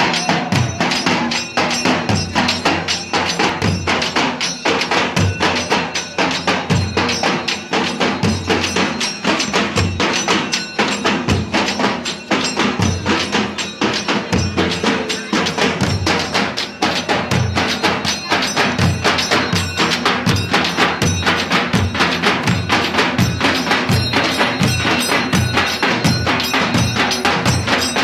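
A troupe of large waist-hung drums beaten with sticks in a fast, continuous, driving rhythm, many drummers playing together, with a steady metallic ringing over the beat.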